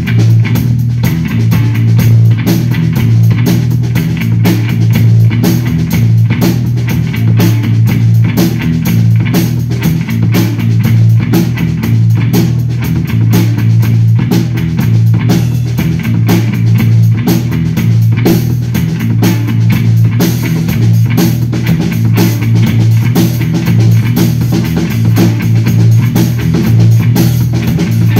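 Electric bass guitar played through effects pedals together with a drum kit, live: the bass is low and dominant, with a dense, steady run of drum and cymbal hits over it.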